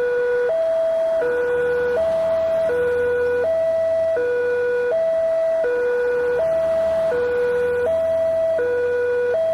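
Railway level-crossing warning siren sounding a steady two-tone hi-lo wail, switching between a higher and a lower tone about every three quarters of a second, the signal that a train is approaching and the crossing gate is closing.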